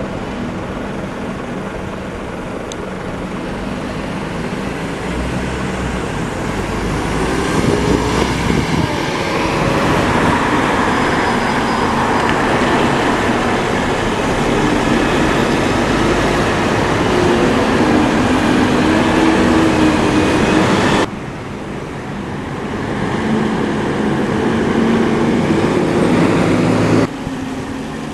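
Single-deck buses driving past on a street: engine and tyre noise building as they come closer, with the engine note rising as a bus pulls away. The sound cuts abruptly twice.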